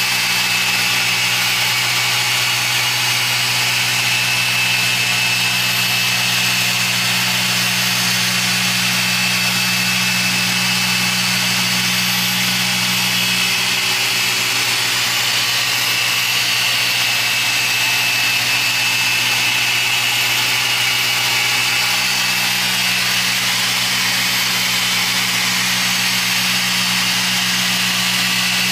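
Machine polisher running steadily on car paint during a polishing test spot, with a steady low drone and a high whine. Its tone changes for several seconds around the middle.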